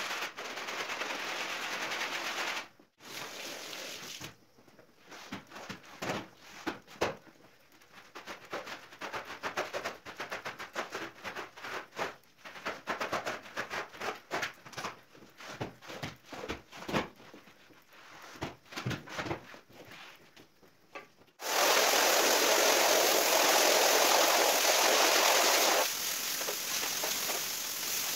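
A stiff hand brush scrubbing a soapy, foamy rug, then irregular wet scraping strokes of a squeegee across the rug and floor. About two-thirds of the way through, a steady, loud rush of water from a hose starts suddenly, rinsing the rug, and eases a little a few seconds later.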